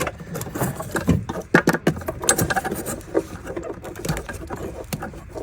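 Hands and tools working on hose clamps and hoses in a car's engine bay: irregular clicks, taps and scrapes of metal and plastic parts.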